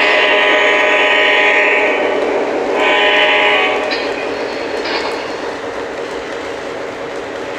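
Model train locomotive's sound system blowing its horn: a long blast that ends about two seconds in, then a short blast a second later, over the steady running rumble of the train. Two brief clicks follow near the middle.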